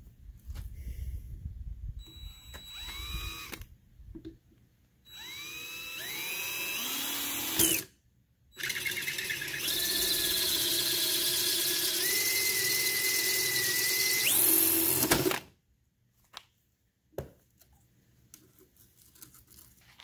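DeWalt cordless drill boring a hole through PVC pipe. It spins up several times in short trigger pulls, rising in pitch each time, then runs steadily for about seven seconds and stops suddenly. A couple of faint clicks follow.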